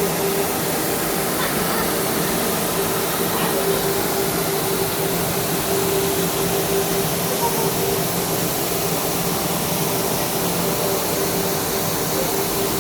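Waterfall rushing as a steady, even wash of water noise, with a faint steady hum underneath.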